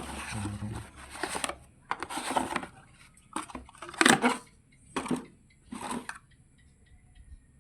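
Packaging being handled during an unboxing: a series of short rustles and crinkles, the loudest about four seconds in, tailing off after about six seconds.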